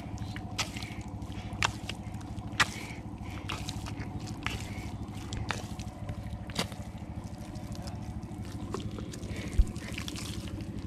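Hands squelching and digging through soft wet mud, with scattered sharp wet smacks and clicks about once every second or two and a thump near the end, over a steady low hum.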